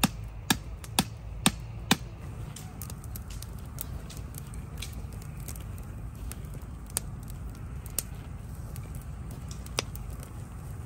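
Hatchet chopping into a wooden stick: five sharp strokes about two a second, stopping about two seconds in. After that a campfire crackles with scattered small pops.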